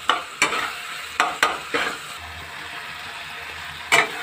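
A steel spatula stirring frying masala in a stainless steel kadai: a few sharp metal-on-metal clicks in the first two seconds and a louder one near the end, over a low sizzle.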